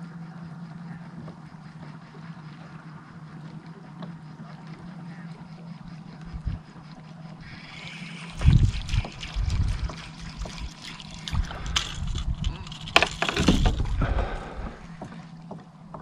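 Water sloshing and gurgling against a kayak hull. From about halfway through come heavy low thumps and sharp knocks, loudest twice, as gear and the boat are handled.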